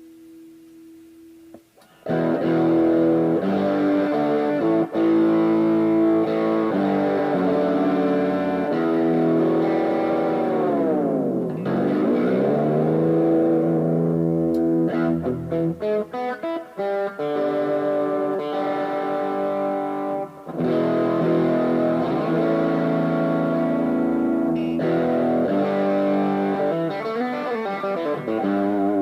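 Fernandes FST-70 electric guitar playing sustained ringing chords that come in about two seconds in, with the pitch swooping down and back up near the middle and again near the end.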